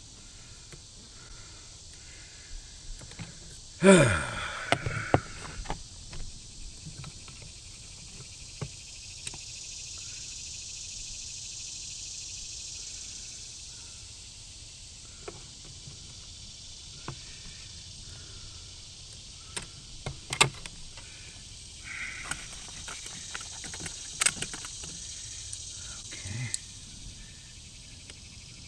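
Scattered clicks and light knocks of hands and tools handling the wires and terminals of a new run capacitor in an RV rooftop air conditioner, over a steady hiss that swells twice. About four seconds in comes one loud, short sound that falls sharply in pitch.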